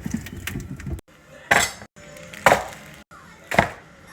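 Three sharp clatters of kitchenware about a second apart, over background music, with abrupt cuts to silence between them.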